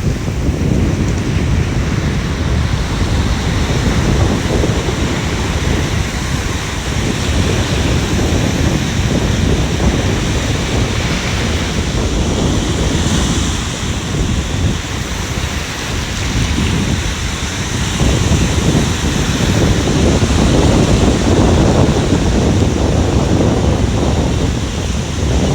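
Ocean surf breaking and washing up on the beach: a continuous rush of waves that swells and eases, growing louder in the last third.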